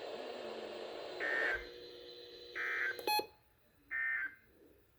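NOAA Weather Radio SAME end-of-message data bursts closing the Required Weekly Test: three short bursts of digital data tone about a second and a half apart. A sharp click falls between the second and third burst.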